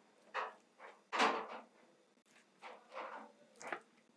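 A series of short scraping, rubbing sounds as a heated wire rod is twisted and pushed through the wall of a plastic bucket to melt a hole, the loudest a little over a second in.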